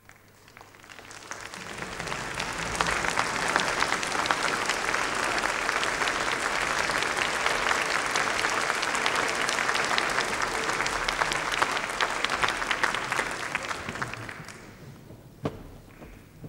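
Audience applause in a concert hall. It swells over the first couple of seconds, holds steady, then dies away about fourteen seconds in, and a single short knock follows soon after.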